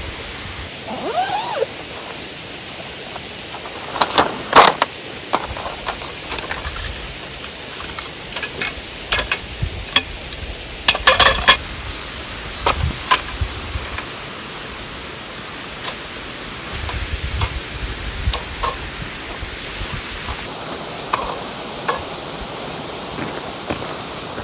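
Steady rushing of a waterfall, with irregular clacks and rattles of metal tent poles being handled, loudest in a couple of clusters.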